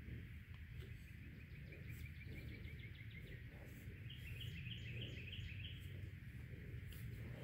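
Faint outdoor ambience with birds singing: a rapid trill that slides slightly down in pitch about two seconds in, then a run of repeated higher notes from about four to six seconds, over a low steady rumble.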